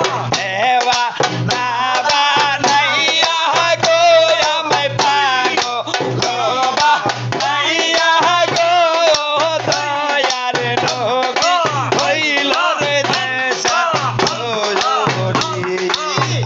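Men singing a Bengali boitoki folk song with a wavering lead voice, hand claps and a barrel drum beating a steady rhythm underneath.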